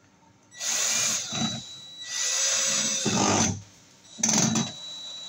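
Ryobi cordless drill/driver running in three bursts with a high motor whine, driving a screw. The second burst is the longest and the last is short.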